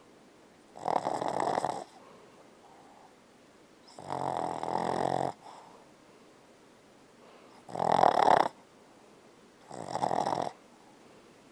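Boston Terrier snoring in her sleep: four snores, each about a second long, a few seconds apart.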